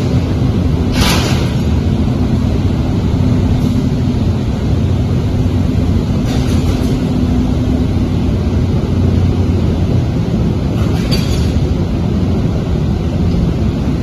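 Automotive glass tempering furnace line running: a loud, steady low rumble with a faint hum. Three times a short hissing rush of noise rises over it.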